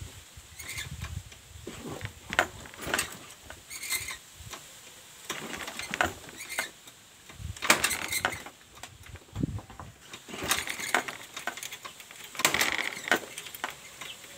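Irregular small clicks and rattles of a scooter's wiring harness and plastic connectors being handled and pulled about, with no engine running.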